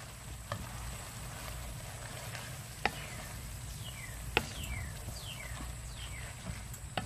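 Spatula knocking and scraping against a nonstick pan as noodles are tossed: a few sharp isolated clicks over a low steady hum. Between about four and six seconds in there is a run of short falling chirps.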